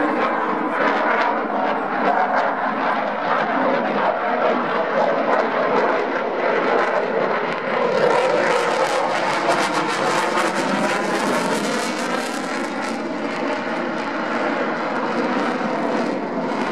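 Jet noise from a Eurofighter Typhoon's two Eurojet EJ200 turbofans during a flying display, a dense, steady rush. From about halfway through it turns harsher and brighter, with a crackle, and the crackle fades again near the end.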